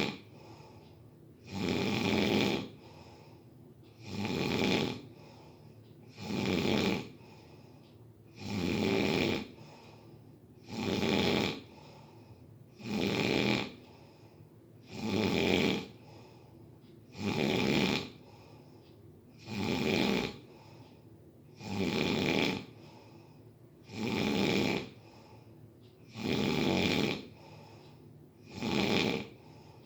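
Steady, rhythmic snoring, one snore about every two seconds, each lasting about a second.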